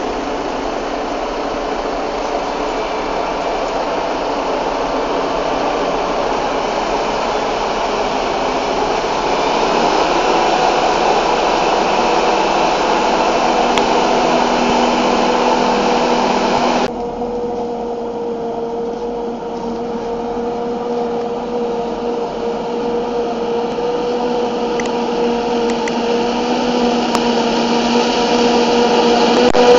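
Claas Jaguar forage harvester chopping maize for silage beside a tractor and trailer: a steady, loud drone of engine and chopper. About 17 seconds in the sound changes abruptly to a quieter, steady machine drone with a clear humming tone.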